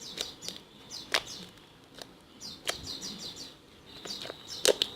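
Slime revived with a fever-cooling gel patch being stretched and squeezed by hand, making scattered sharp clicks and pops, with a cluster of them near the end.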